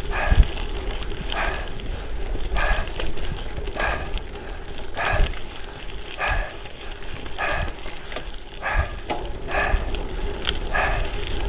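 A cyclist breathing hard under effort, one loud breath roughly every second and a quarter, over a low rumble of wind on the microphone.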